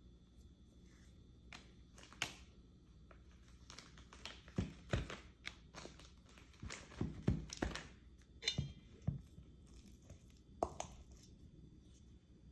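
Kitchen handling sounds: irregular soft knocks, taps and crinkling as food is prepared by hand, bunched mostly in the middle of the stretch.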